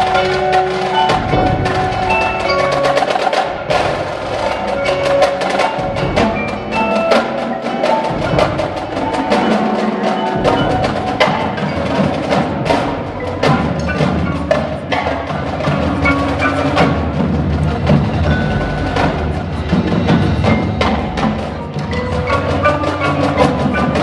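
An indoor winter drumline (indoor percussion ensemble) plays: a front ensemble of marimbas and other mallet keyboards plays pitched notes against rapid strokes from snare and tenor drums.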